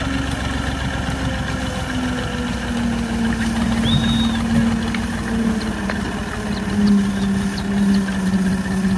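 Diesel farm tractor engine running at low revs while it pulls a heavily loaded trolley slowly up a bank. Its steady hum rises and falls a little with the throttle.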